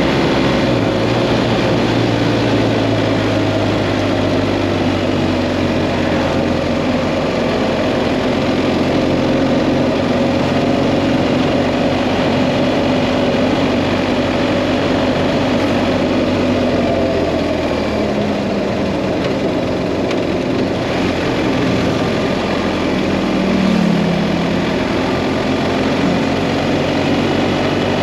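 BMW GS Adventure motorcycle engine running at road speed, with wind and road noise over it. The engine note drifts gently up and down as the speed changes, with a short rise and fall near the end.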